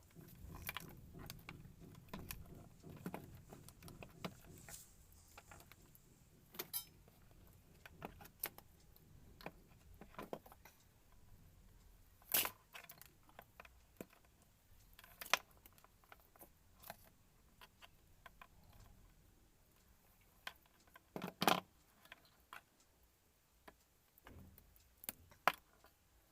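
Irregular small clicks, snips and scrapes of a cable's hard black outer jacket being cut and peeled off by hand, with a few sharper snaps now and then.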